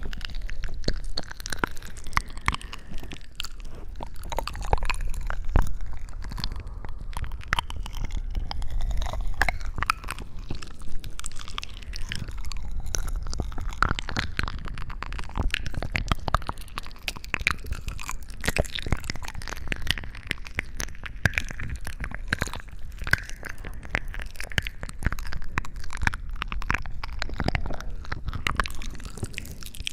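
Dense, irregular crunching and crackling close to the microphone.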